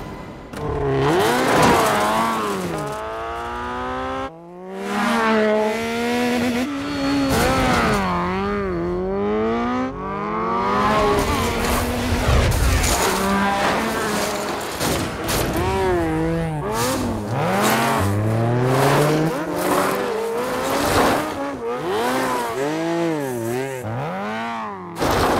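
Motorcycle engines revving hard, their pitch swooping up and down again and again as the bikes accelerate and back off, with some tyre skidding.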